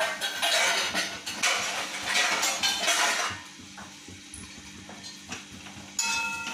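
A spatula scraping and stirring a thick tomato-onion masala in a steel kadhai, in dense bursts for about three seconds, then quieter. Near the end comes a single metal clank that keeps ringing.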